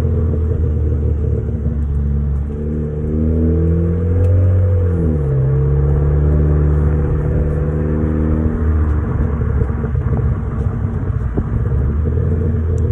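Hyundai Sonata 2.0T's turbocharged four-cylinder engine pulling up through the gears. The revs climb, then drop sharply about five seconds in as the throttle closes, with the aftermarket HKS SQV4 blow-off valve venting. After that the engine runs at a lower, steady pitch, then goes on with a rougher rumble.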